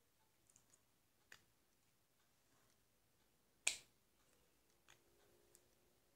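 Faint, scattered clicks of a plastic fidget spinner's bearing cap being pressed and worked onto its centre bearing, with one sharper click a little past halfway.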